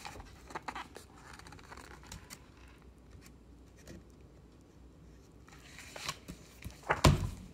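Pages of a picture book being handled and turned: soft paper rustles and small clicks, busier toward the end, with a louder rustle and bump near the end as a page is flipped.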